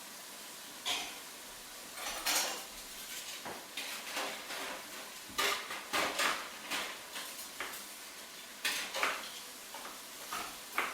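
Dishes and cutlery clinking: a string of irregular sharp knocks and clinks, some ringing briefly, over a faint steady hiss.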